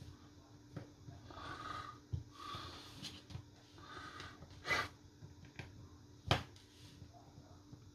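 Quiet handling noise from small-screw work on a phone: a few soft rasps and two sharp clicks, the louder one about six seconds in, over a faint steady hum.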